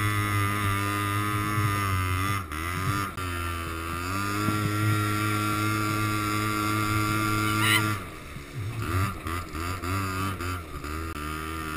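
Quad bike engine running steadily while towing, its pitch dipping briefly twice a few seconds in. About eight seconds in it gets quieter and the revs rise and fall several times.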